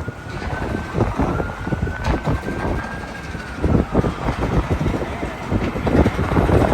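City street traffic with a distant emergency siren wailing, its pitch slowly rising and then falling. Gusts of wind buffet the microphone with low rumbles throughout.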